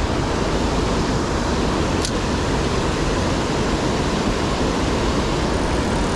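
Steady, even rushing noise with no break, with a faint short tick about two seconds in.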